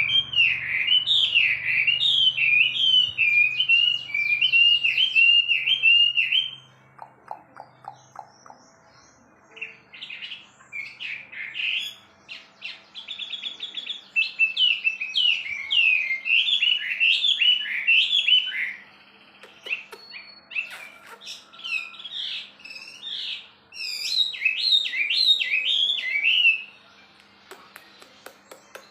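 Chinese hwamei (wambi) singing at full strength: loud, rapid strings of repeated whistled phrases in three long bouts, with fainter scattered chirps in the pauses between them.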